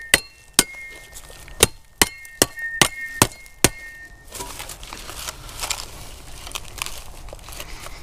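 Sharp metallic knocks with a short ringing clink, about eight strikes at uneven spacing, on the corroded metal canister of a WWII German Wehrmacht gas mask as its bottom end is worked open. A little after four seconds the strikes stop and give way to softer scraping and rustling as the canister is handled.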